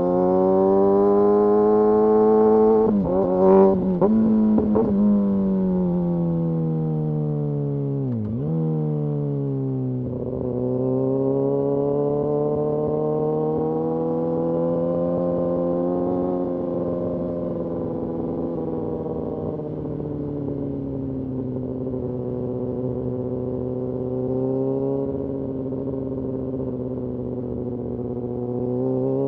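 Kawasaki Ninja ZX-6R inline-four engine running under throttle, heard from the rider's seat, its revs rising and falling through the bends. Several quick drops in pitch come three to five seconds in, a sharp dip near eight seconds, then the revs climb again and ease off slowly.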